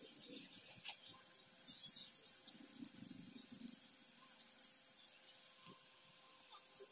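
Giant taro (maan kochu) fritters sizzling in hot oil in a pan, a faint steady hiss with small scattered crackles. About three seconds in, another fritter is laid into the oil by hand.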